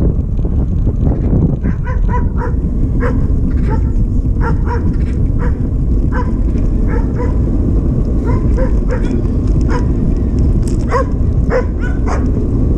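Wind buffeting the microphone of a bike-mounted camera as the bicycle rides along. Over it, a series of short, high, pitched calls repeat irregularly from about two seconds in.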